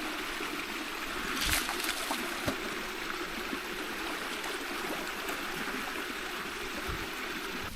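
Steady rush of flowing stream water, with a couple of brief knocks or splashes about one and a half and two and a half seconds in.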